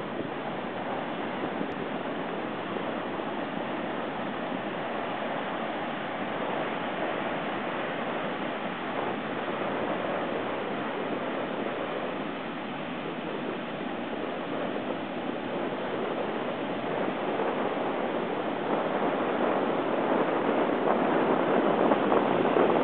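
Heavy hurricane-driven surf breaking along the beach: a steady rushing of water, with wind on the microphone, growing louder over the last few seconds.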